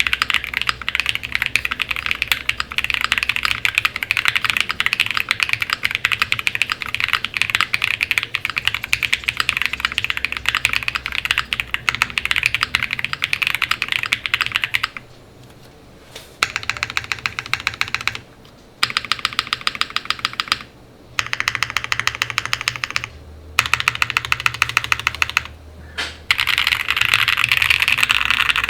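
Fast typing on an Odin75 mechanical keyboard with an FR4 plate, full foam, lubed and filmed Glorious Panda tactile switches and PBTFans PBT keycaps: a dense run of key clacks. About halfway through, the typing breaks into short bursts with brief pauses between them.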